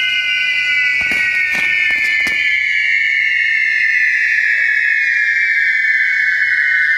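Spinning ground-firework wheel throwing sparks, its whistling fountains sounding several high whistles together that slowly fall in pitch. There are four sharp cracks in the first couple of seconds.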